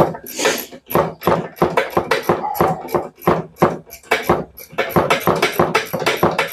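A dog barking over and over in quick, short barks, about three a second.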